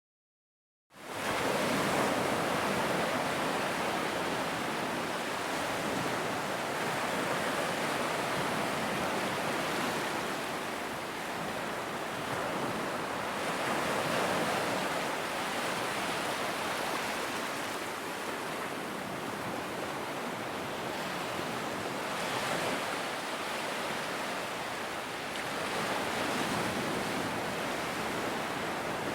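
Large ocean waves breaking on a beach: a continuous wash of surf that begins about a second in and swells and eases every few seconds.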